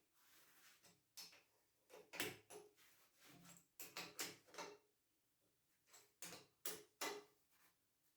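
Faint, irregular knocks and clicks, some in quick pairs, with short quiet gaps between them.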